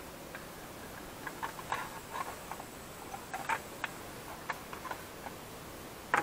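Irregular light clicks and taps of small plastic pool-pump parts being handled and fitted together by hand, with a sharper click near the end.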